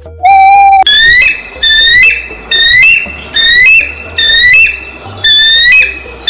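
A bird calling loudly: a short steady whistled note, then a quick series of high calls, each rising slightly in pitch, repeated in pairs about every half to three-quarters of a second.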